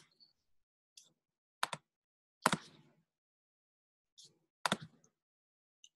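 Several short, sharp clicks of a computer mouse, spaced irregularly a second or so apart, with a few fainter ticks between them.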